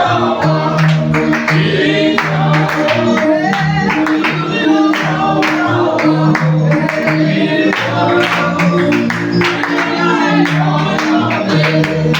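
Gospel praise music: a group of singers over a band with a steady beat and bass.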